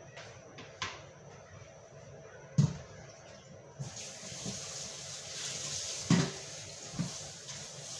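Kitchen tap turned on about four seconds in, water running steadily into a steel pot in the sink. A few clunks of cookware against the sink, two of them loud, one before the water starts and one near the end.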